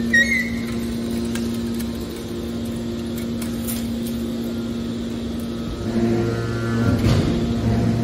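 Hydraulic scrap metal baler's power unit running with a steady hum. About six seconds in a deeper hum comes in and the sound grows louder.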